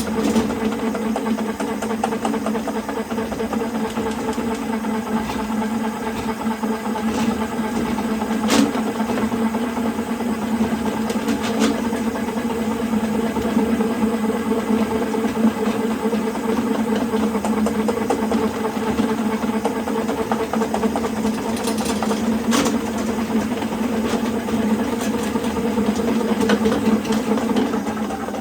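Electric drain-cleaning machine running steadily while snaking a drain line through a cleanout, with a few sharp clicks along the way.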